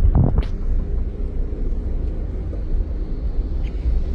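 Road noise inside a moving car: a steady low rumble of engine and tyres. A brief rising swish comes about a quarter of a second in.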